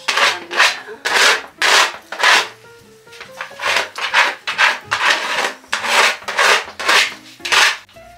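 Painting knife scraping over acrylic paint on a canvas in quick back-and-forth strokes, about two a second, with a short pause about three seconds in.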